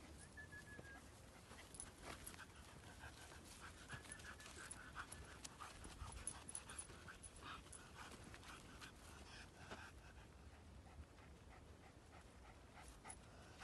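Near silence: faint outdoor background with soft, irregular scuffs and clicks.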